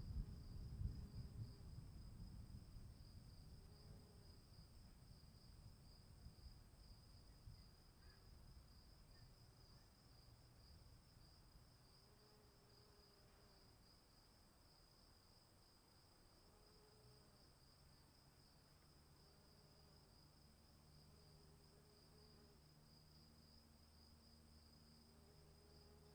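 Faint distant thunder rumbling and dying away over the first several seconds, over a steady high chirring of crickets. Later only the crickets and a faint low hum remain.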